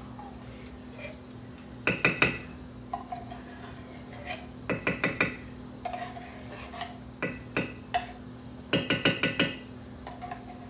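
A utensil scraping condensed cheese soup out of a metal can and knocking against the can and the skillet, in four short clusters of quick clinks and taps. A steady low hum runs underneath.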